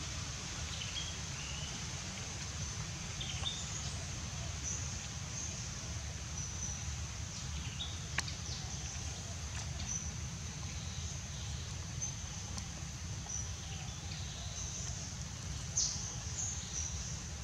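Tropical forest ambience: a steady high insect drone, scattered short bird chirps and a low rumble, with a sharp click about eight seconds in and another near the end.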